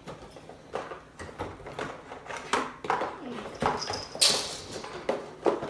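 Irregular taps, clicks and rustles of boxed vinyl Funko Pop figures being picked up and handled.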